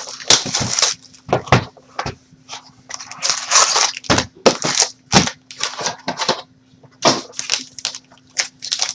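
Plastic wrapping crackling and tearing and cardboard being handled in short irregular bursts as a hobby box of trading-card packs is opened.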